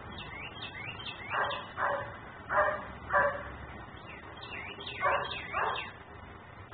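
German shepherd barking, about six barks in pairs with a pause of about two seconds before the last pair.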